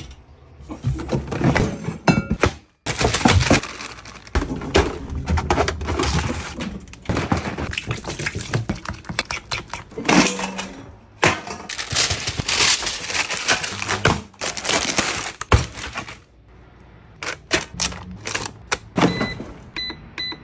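Clatter and knocks of handling, including a digital air fryer's basket being pulled out and pushed back in. Near the end, the air fryer's control panel gives a few short beeps as its buttons are pressed.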